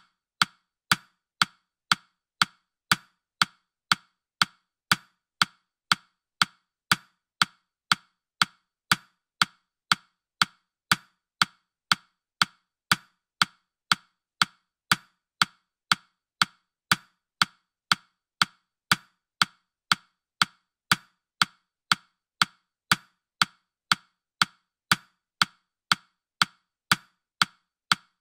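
Clock-like ticking sound effect of a digital countdown timer: short, sharp, wooden-sounding ticks at a steady pace of about two a second.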